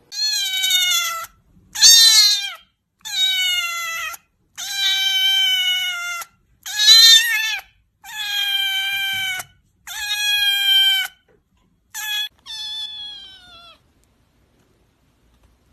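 Kitten meowing over and over: about nine high calls of up to a second and a half each, most dropping in pitch at the end. The calls stop near the end.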